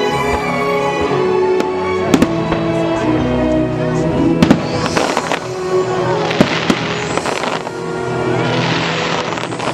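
Fireworks going off over loud show music: a few sharp bangs, about two seconds in, around four and a half and six and a half seconds in, then crackling, fizzing bursts through the second half.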